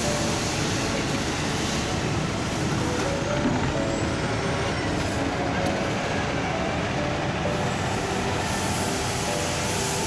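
Truck-mounted street sweeper running as it drives over milled asphalt: its engine and sweeping gear give a steady, dense mechanical noise.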